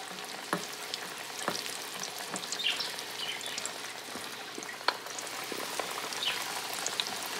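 Flour-coated chicken pieces frying in hot oil in a skillet: a steady sizzle full of crackles, with a few sharper clicks and pops.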